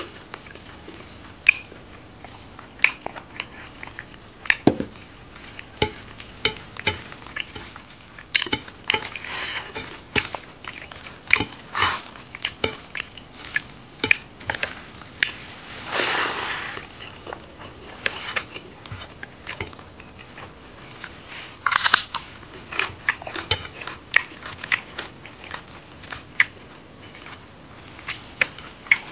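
Close-up eating sounds of a man eating rice and pork curry by hand: chewing and lip smacking with many short sharp clicks, and a longer rushing noise about halfway through.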